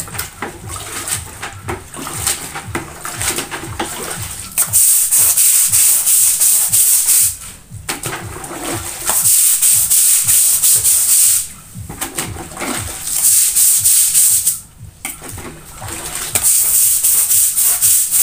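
Stiff long-handled brush scrubbing a wet concrete floor, in bouts of rapid back-and-forth strokes lasting a few seconds each, with short pauses between.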